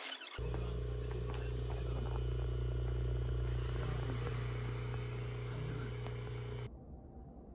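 Air-compression leg massager's pump running with a steady hum while it inflates the leg cuffs, stopping suddenly near the end.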